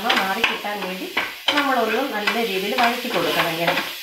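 A spoon stirring and scraping through sizzling shallots, tomato and chilli in a non-stick frying pan, with clicks of the spoon on the pan. A wavering pitched tone runs under it, breaking off briefly about a second and a half in.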